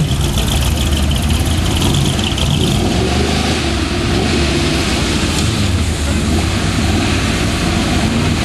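Off-road 4x4 truck's engine running with a steady low rumble under a constant rushing noise.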